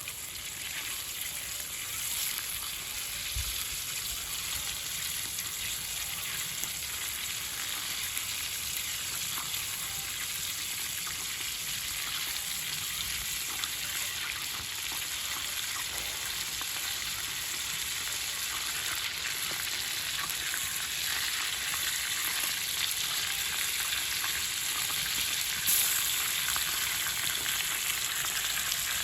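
Food frying in a cauldron (kazan) over an open fire: a steady sizzle that grows slightly louder.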